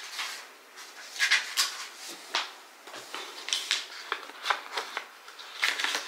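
Irregular clicks, taps and rustles of small objects being handled, two or three short strokes a second with no steady rhythm.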